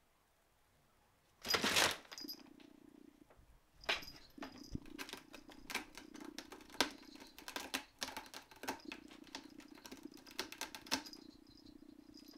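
Cat's claws scratching and tapping at the sisal rope of a cat-tree post in a quick run of clicks and scrapes. This follows a short, loud rustle of clear plastic sheeting about a second and a half in.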